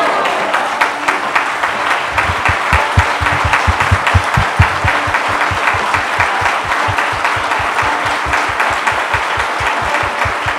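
Audience applauding, dense and steady. From about two seconds in, a fast, regular low thumping runs under the clapping.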